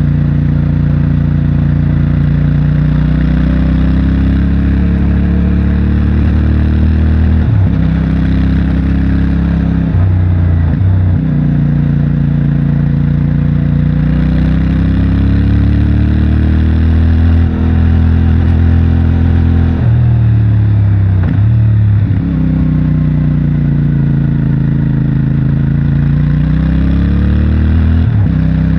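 CFMOTO 450MT's parallel-twin engine and stock exhaust under way, revs climbing and falling with several sudden pitch jumps as gears are changed.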